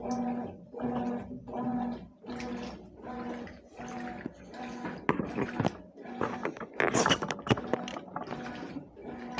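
Consul CWS 12 washing machine in its wash cycle: the motor hum pulses about every three-quarters of a second as it churns the load back and forth in the water. About halfway through, the pulsing breaks up into irregular sloshing and clattering, loudest a couple of seconds later.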